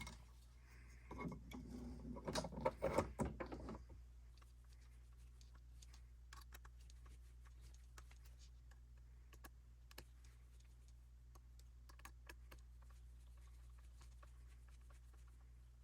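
A servo and mounting parts being handled and fitted by hand: a cluster of clicks and rattles for about three seconds near the start, then faint scattered clicks.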